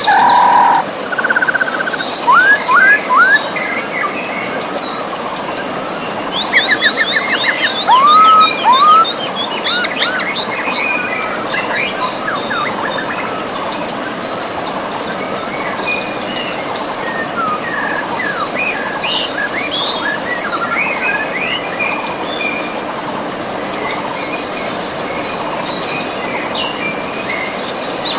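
A river flowing, a steady rush, with several birds singing and chirping over it. The calls come thickest and loudest in the first ten seconds and thin out later.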